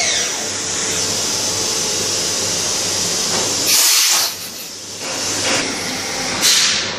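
Leadwell V-50L CNC machining centre: a high spindle whine falls in pitch as it winds down at the start. Then comes a steady spray hiss with two louder surges, one about four seconds in and a shorter one near the end.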